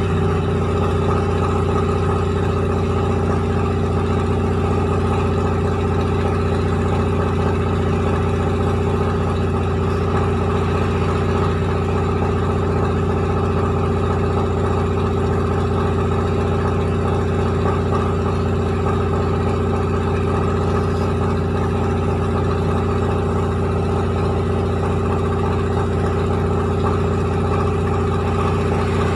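Rice milling machine running steadily: a constant mechanical drone with a strong low hum and a rattling, grinding haze above it, never changing in speed.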